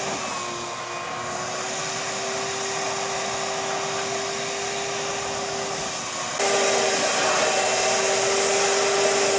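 Wet/dry shop vacuum running steadily, sucking floodwater out of a flooded pump-house pit: a steady motor whine over a rushing noise. It turns suddenly louder and hissier about six seconds in.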